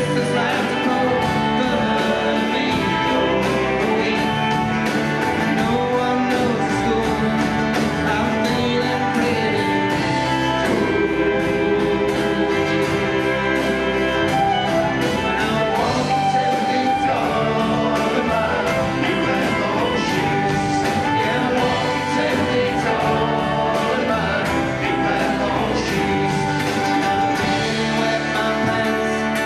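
Live folk band playing a song: fiddle, electric bass, acoustic guitar and mandolin over a drum kit, running steadily throughout.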